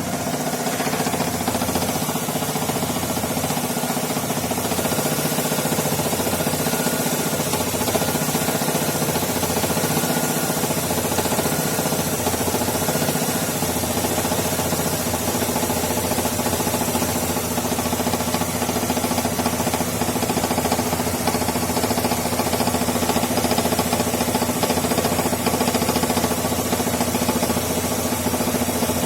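Chevrolet Lacetti's 1.6-litre four-cylinder petrol engine idling steadily. The loose crankshaft pulley that had been knocking has been tightened, and the owner says the engine is now running stably.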